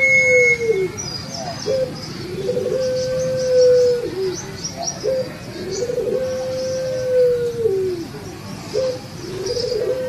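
Barbary (ringneck) dove of the Indonesian 'puter pelung' contest type cooing over and over. Each coo rises, holds a long even note, then falls away, and a short note follows; the cycle repeats about every three and a half seconds. Small birds chirp faintly and high in the background.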